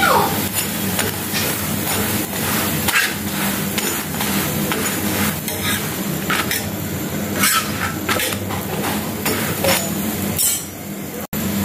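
A metal spatula scraping, pressing and tapping a paratha on a tawa griddle as it fries, in repeated short clicks and scrapes over a steady hiss.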